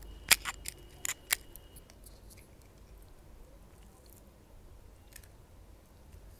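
Crisp, hollow fried golgappa puri shell cracking as it is poked open: a quick run of sharp crackles over the first second and a half, then only faint handling sounds.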